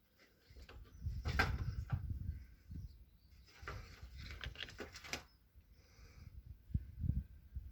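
Hands handling a car tire inflator's opened casing as wires are fed through it: irregular clicks and rattles, in clusters about a second and a half in and again around four to five seconds in, over low rumbling handling noise.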